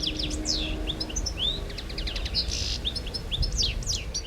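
A chorus of several birds singing and calling at once: many quick, overlapping chirps and whistled notes sliding up and down, with a short hissy call about two and a half seconds in, over a low background rumble.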